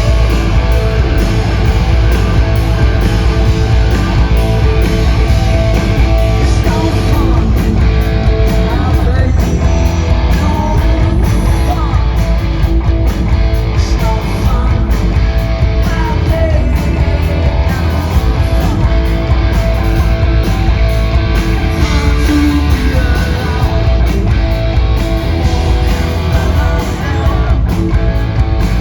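Live punk rock band playing loudly, with electric guitar, bass and drums.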